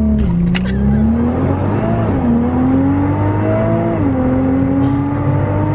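Nissan GT-R's twin-turbo V6 accelerating hard after a launch, heard from inside the cabin with the Armytrix exhaust's valves closed. The engine note climbs and drops at quick upshifts, three of them about two seconds apart.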